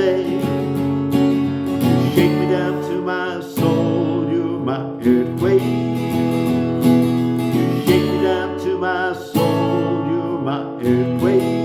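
Acoustic guitar strummed, playing the song's instrumental ending, with a fresh strong strum at each chord change.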